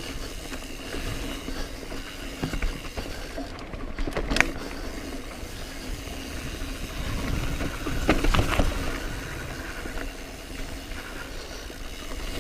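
Mountain bike being ridden over a rough trail: a steady rattle and rumble of tyres and bike, with a few sharp knocks about four seconds in and again around eight seconds in.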